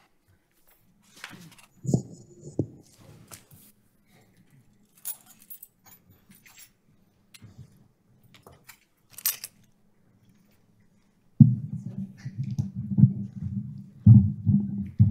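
Scattered small clicks and knocks in a quiet room, like keys, chairs and footsteps as people move about; about eleven seconds in, muffled low voices talking away from the microphone start up and carry on.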